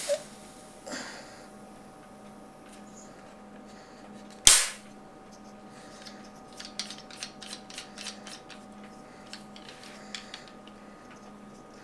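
A single loud, sharp burst of CO2 gas with a short fading tail about four and a half seconds in, as an airsoft shotgun shell is charged from an 88-gram CO2 charger. Light clicks of the plastic shells being handled come before and after it.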